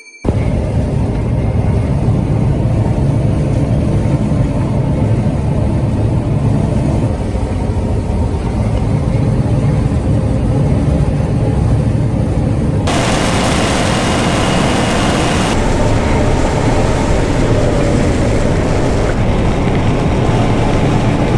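John Deere combine's diesel engine running steadily under load, a dense low rumble. A brighter hiss joins about 13 seconds in and partly falls away a couple of seconds later.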